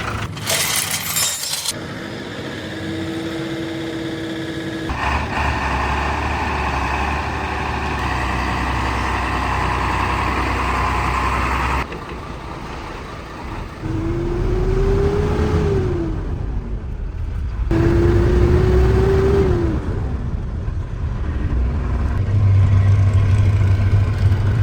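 Mercedes truck engine running and being revved, its pitch rising then falling twice, heard in several short segments that cut abruptly from one to the next.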